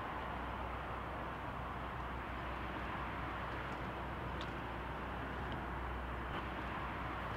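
Steady vehicle rumble and hiss with a low hum, holding even throughout, with a few faint ticks.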